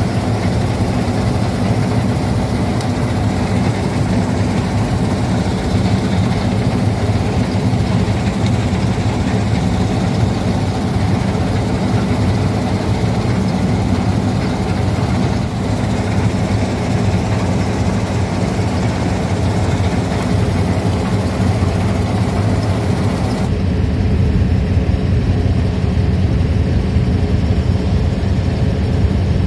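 Combine harvester running steadily under load while cutting and threshing triticale: a low engine drone with a broad mechanical hiss of the header and threshing drum above it. Near the end the hiss drops away abruptly, leaving mostly the low drone.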